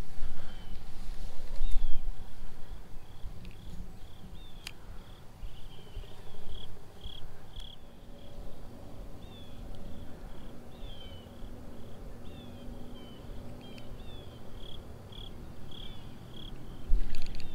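Repeated short high chirps, a few sliding down in pitch, from small wildlife at the water's edge, over a low rumble. A single sharp click comes about four and a half seconds in.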